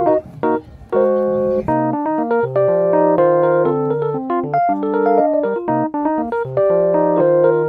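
Background music: a light keyboard tune, with short notes changing several times a second.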